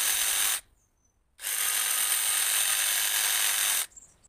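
Cordless jigsaw running, its reciprocating blade sawing a slit into the end of a wooden arrow shaft. It stops just over half a second in, starts again under a second later, and stops near the end.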